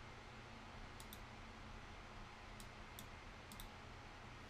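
Faint computer mouse clicks, a handful of sharp ticks, some in quick pairs, over a low steady room hum.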